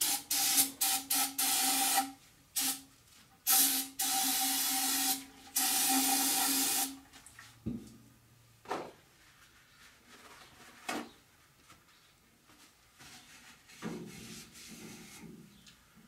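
Aerosol spray can of cleaner being sprayed onto coilover shock parts: several short hissing bursts, then two longer blasts of about two seconds each, with a faint steady whistle from the nozzle. The spraying stops about seven seconds in, followed by a few sharp clacks and quiet rubbing.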